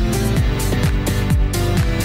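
Background electronic dance music with a steady kick-drum beat and sustained synth tones.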